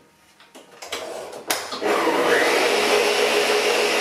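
A few clicks and knocks as the stand mixer's head is lowered, then its motor starts with a rising whine and runs steadily, beating the second egg into the creamed butter and sugar.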